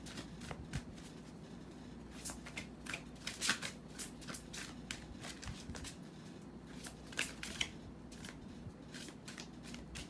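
A deck of oracle cards being shuffled by hand: a run of quick, irregular clicks and snaps of the cards, busiest a couple of seconds in and again around seven seconds.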